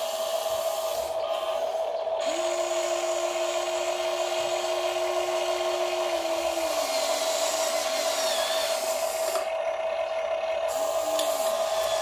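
Whine of the small electric motors of a Huina RC excavator as the boom lowers and the bucket digs into a pile of rocks. A steady high whine runs throughout. A second, lower motor tone comes in about two seconds in and slides down near the middle.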